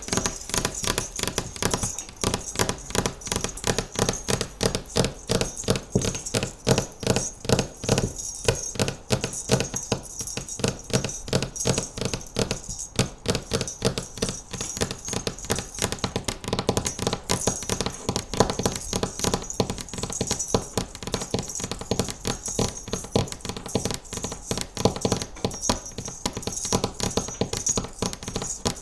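Fingernails tapping fast and without a break on hard objects, with a bright clinking, jingling ring over the taps.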